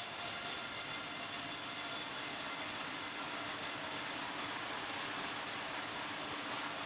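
Sawmill machinery running with a steady mechanical hum and noise, with no distinct cuts or impacts.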